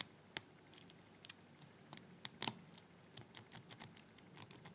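Number wheels of a four-wheel combination padlock clicking through their detents as they are turned by hand, one click per number. Scattered clicks give way to a quicker run of about four or five a second near the end. The wheels are being turned one at a time to feel which one binds while the shackle is pulled, in order to decode the combination.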